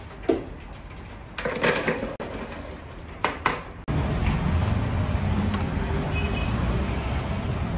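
Metal deep-fryer basket knocking and rattling as chips are shaken out of it, in a few short clatters. After an abrupt cut about four seconds in, a steady low rumble takes over.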